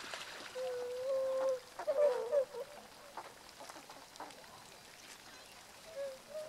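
Bewick's swans calling: one drawn-out call just after half a second in, a quick cluster of calls around two seconds, and a couple more near the end.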